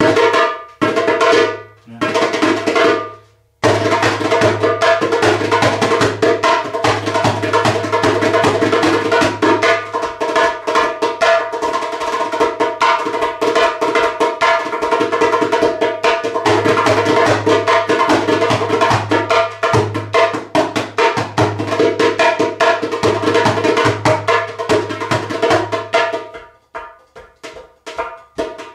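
Hand drum played with the hands: a few single ringing strokes, then a fast, dense rhythm from about four seconds in, thinning to scattered strokes near the end.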